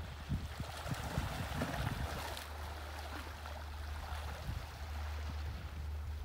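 Small waves lapping and gurgling against shore rocks, an even wash of water with a few low knocks in the first couple of seconds, over a steady low rumble.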